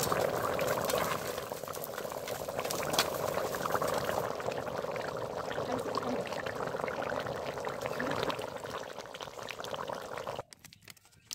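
Meat and potato curry boiling in its pan, a steady dense crackle of bursting bubbles in the gravy; it cuts off abruptly about ten seconds in.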